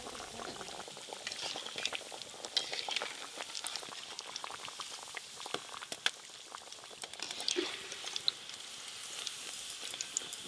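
Breaded chicken cutlets deep-frying in hot oil in a metal kadai: a steady sizzle full of small crackling pops. A metal slotted ladle knocks and scrapes against the pan now and then as the cutlets are turned and lifted out.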